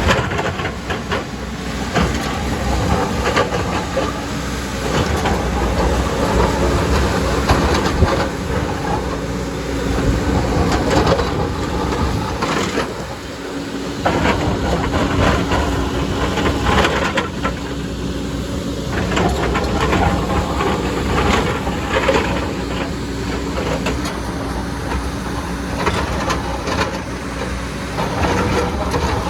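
Heavy JCB excavator at work: its diesel engine runs continuously under many irregular metallic clanks and knocks from the machine digging. A steady engine hum comes up in the middle and holds until near the end.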